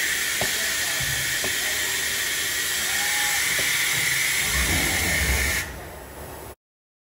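Ultrasonic cutting machine running: a steady, shrill hiss with a few light clicks and a low rumble from the moving head, cutting off abruptly near the end.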